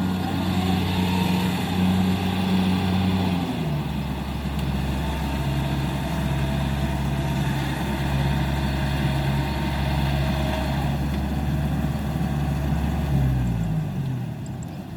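Kubota 70 combine harvester's diesel engine running steadily. Its pitch drops about three and a half seconds in, then falls again and the engine winds down near the end.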